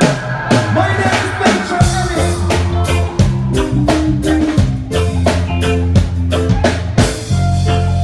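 Live band playing with a steady beat: drum kit, bass guitar, electric guitar and keyboards.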